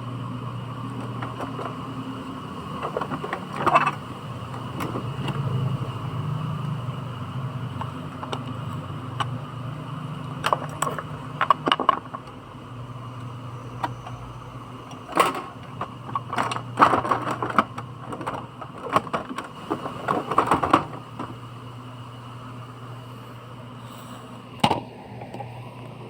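Scattered clicks and knocks of hard plastic parts of an Epson L360 printer being handled and fitted during disassembly, in clusters of several quick taps, over a steady low hum.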